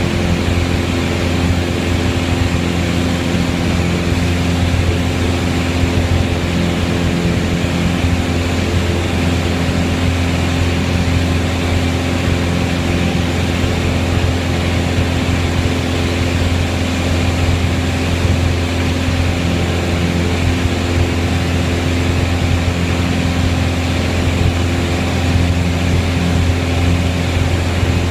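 Piper Warrior's four-cylinder Lycoming engine and propeller running steadily, a loud unbroken drone with a strong low hum, heard inside the cabin.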